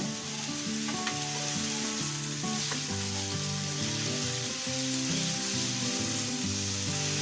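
T-bone steak sizzling steadily as it fries in a pan, with a couple of light clicks along the way.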